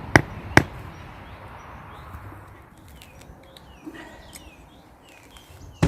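Two sharp knocks in quick succession just after the start, then small birds chirping over a quiet outdoor background.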